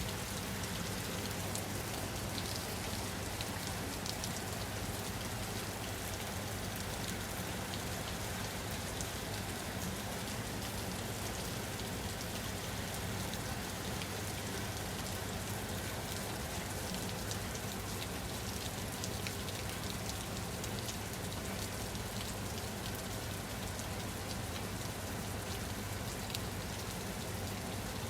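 Steady rain falling on a surface, with fine patter of individual drops over a constant low rumble.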